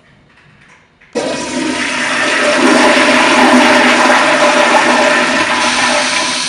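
Toilet flushing: a sudden loud rush of water starts about a second in and holds steady, easing off near the end.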